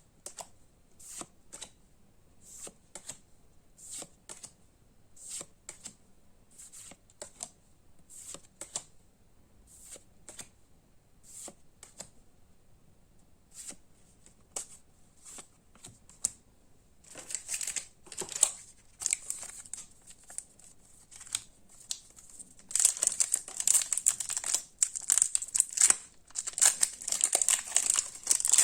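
Pokémon trading cards being flicked through one at a time, each making a short tick about one or two times a second. Past the halfway point this gives way to rustling, then to loud, continuous crinkling of foil booster pack wrappers being handled and opened.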